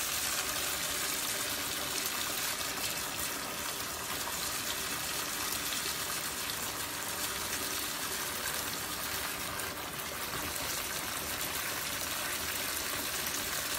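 Bathtub faucet running steadily, its stream splashing over a spinning bubble-bar spinner held under it and pouring into a foam-covered bath.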